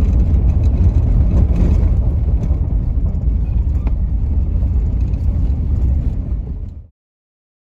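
Steady low road rumble of a moving vehicle heard from inside the cab, engine and tyres on the road, with a few faint rattles; it cuts off abruptly about seven seconds in.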